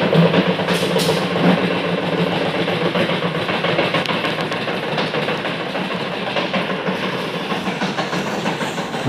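Earthquake sound effect: a loud, continuous rumble with dense rattling, starting suddenly.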